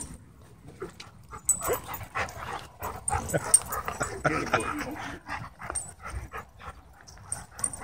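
Several dogs barking, yipping and whining in short, irregular bursts, busiest in the middle of the stretch, as they crowd and jump for a toy held overhead.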